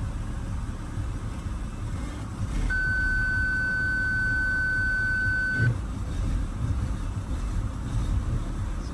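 BMW X3 2.5si's petrol straight-six idling with a steady low rumble; the engine has an intermittent misfire that fault codes trace to cylinder 6's ignition coil. About three seconds in, a steady electronic beep sounds for about three seconds and then stops.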